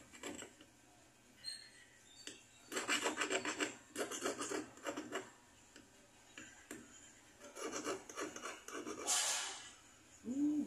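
Small hand file rasping on a thin metal bangle, in several short spells of quick back-and-forth strokes.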